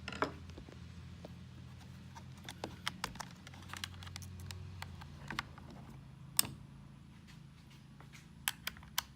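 Scattered small plastic clicks and taps from handling a door lock actuator and its lock cables, the cable-end cover pried open. The sharpest click comes about six seconds in, with a low steady hum underneath.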